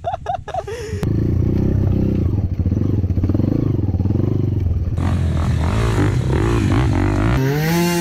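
Trail motorcycle engine revving hard and unevenly, cutting abruptly to different takes about five and seven seconds in, the last one rising and falling in pitch. A voice is heard briefly at the very start.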